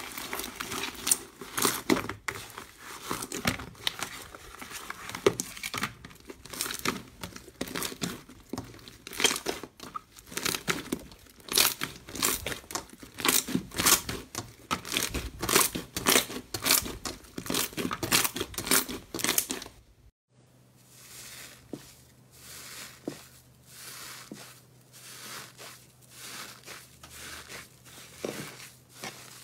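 Slime being squeezed and worked by hand, giving dense, rapid crackling and popping. About twenty seconds in it cuts to a quieter stretch of softer crackles over a low steady hum.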